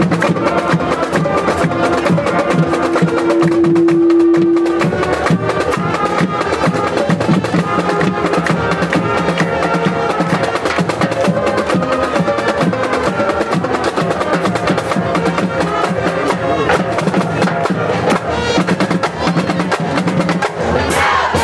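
Band music driven by drums with a rattling snare-style beat and horn-like melody lines, including one note held for about two seconds early on, typical of a high school marching band playing in the stands.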